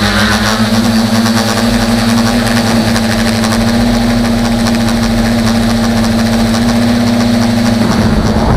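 Tricopter's electric motors and propellers running at a steady pitch while it flies, recorded by a camera mounted on the craft, with a constant hiss over the top. Near the end the steady note breaks up and wavers.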